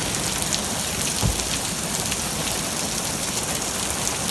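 Heavy rain falling steadily, with many sharp individual drop ticks, and a single short low thump about a second in.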